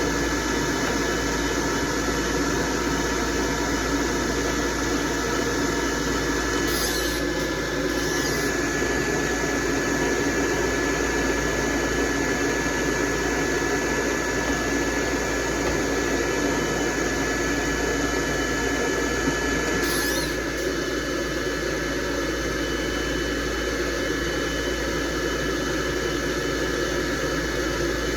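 Electric hair dryer blowing on a dog's coat, a steady rushing noise with a thin constant whine, its sound shifting briefly a couple of times as the airflow moves.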